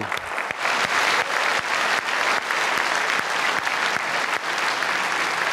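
Audience applauding, many hands clapping steadily, with one person's claps close by standing out as sharp strikes.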